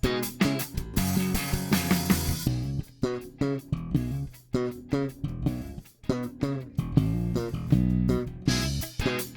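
Lakland Skyline 55-02 five-string electric bass being played: a quick run of plucked notes with sharp attacks, broken by a couple of held notes and brief pauses.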